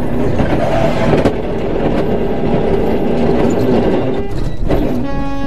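Semi-truck diesel engine running, heard from inside the cab as a loud, steady rumble with rattling. Near the end a sustained tone with several pitches comes in over it.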